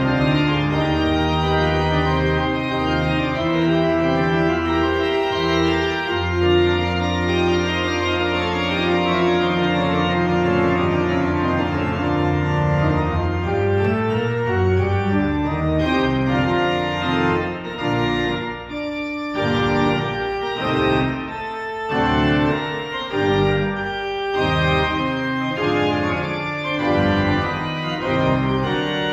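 Church pipe organ playing full, sustained chords over held low pedal notes. About halfway through the playing turns to shorter, detached chords, with a brief break a little past the middle.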